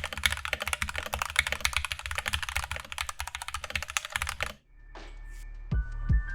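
Rapid typing on a mechanical keyboard with stock, unlubed Everglide Aqua King linear switches in an aluminum plate: a dense run of keystroke clacks. The typing stops about four and a half seconds in, and electronic music with deep bass thumps starts.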